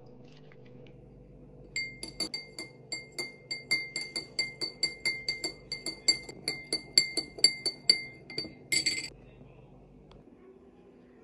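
A utensil clinking rhythmically against a glass vessel, about four strikes a second for some seven seconds. The glass rings at the same tones with every strike, and the clinking ends in a brief rattle.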